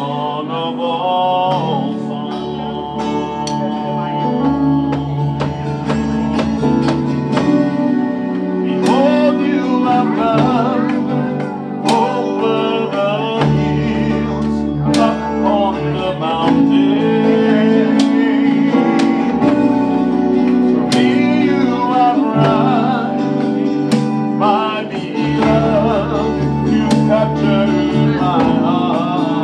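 Live worship band playing an upbeat song: drum kit, electronic keyboard and guitar, with several voices singing through microphones.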